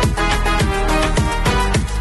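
Upbeat background music with a steady, quick drum beat.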